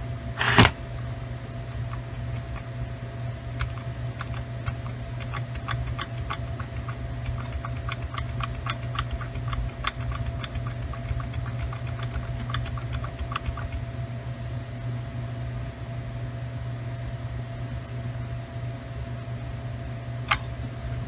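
Light, irregular clicking from working a computer, thickest in the first half, over a steady low hum.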